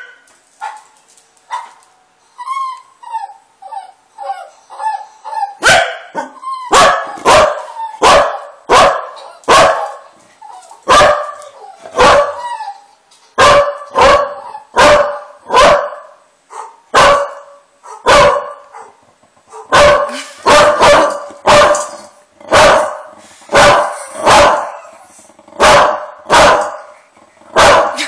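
A corgi barking angrily and repeatedly, sharp barks about one a second, some in quick doubles. The first few seconds hold high, wavering whimpers before the barking starts.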